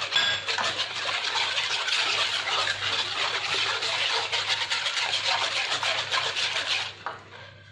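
A hand rapidly mixing a runny milk-and-oil mixture in a wooden bowl: quick, continuous sloshing and swishing that stops about seven seconds in.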